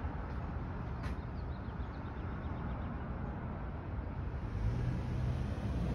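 Outdoor background noise: a steady low rumble, with a single sharp click about a second in and the rumble growing near the end.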